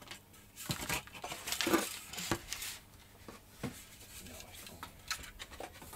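Light handling sounds: a scattering of small clicks, taps and short rustles as a carbon-fibre model glider fuselage is held and shifted against its wing.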